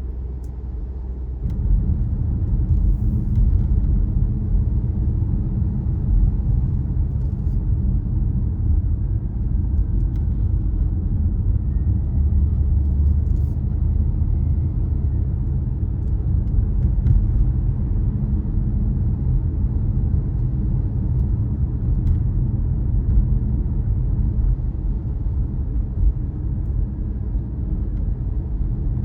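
Car driving along: a steady low rumble of engine and tyre noise, stepping up in level about a second and a half in and then holding even.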